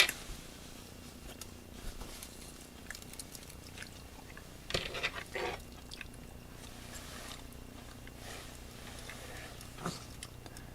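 Faint hand-handling sounds of a cassette and its loose tape as the splice is wound onto the take-up reel: scattered light clicks and rustles, with a short cluster of louder ones about five seconds in, over a faint steady hum.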